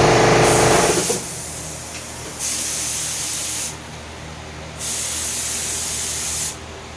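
Paint being sprayed onto a garage door in two hissing bursts, each about one and a half seconds long. A machine hum stops about a second in.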